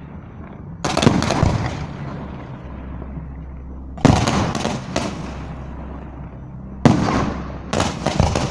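Fireworks display: three clusters of sharp bangs, about three seconds apart, each cluster fading away in an echo before the next.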